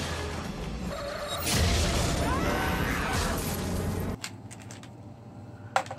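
Action-film sound effects mixed with background music: crashes and impacts, the loudest about a second and a half in, with glass shattering. The film audio cuts off suddenly about four seconds in, leaving a quiet room with a few light clicks near the end.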